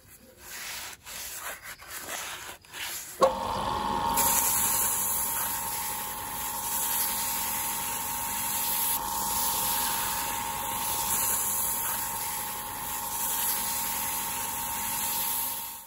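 Sandpaper rubbing on a bamboo blank spinning on a wood lathe: a few uneven scratchy strokes at first, then, about three seconds in, a steady hiss of sanding over the lathe motor's steady whine.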